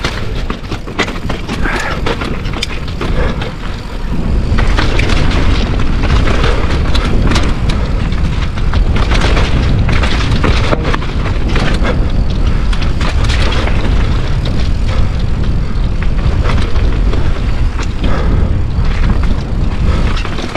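Mountain bike riding downhill over rock slabs: tyres, chain and frame clattering with many small knocks, under heavy wind rumble on the helmet or chest camera's microphone. It gets louder about four seconds in.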